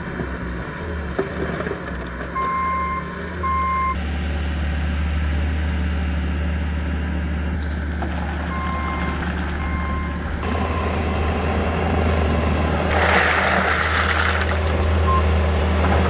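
Bobcat compact track loader's diesel engine running steadily, its backup alarm beeping in two short runs. About thirteen seconds in comes a loud rattling rush of stone tipping out of the bucket onto the fabric.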